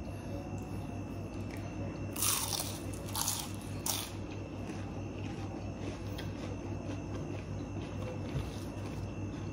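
Close-up chewing of crispy fried food, with a few crisp crunches about two to four seconds in, over a steady low hum.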